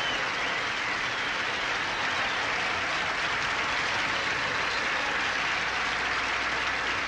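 Banquet audience applauding steadily, a sustained round of clapping with no let-up.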